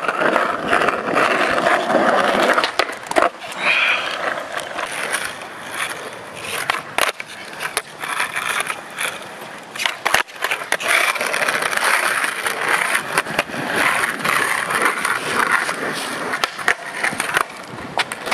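Skateboard wheels rolling over rough asphalt and concrete, with several sharp clacks of a board popping and landing.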